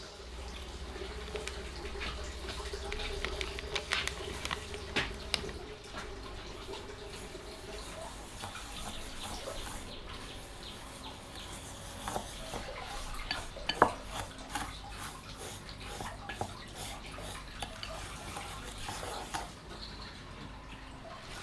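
Dishes, pots and metal utensils clinking and knocking in irregular clicks during kitchen work. A steady low hum runs under the first several seconds.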